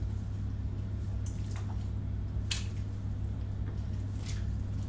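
Pieces of beef trotters and bones being dropped by hand into a pot of water, making three short wet splashes, the loudest about halfway through, over a steady low hum.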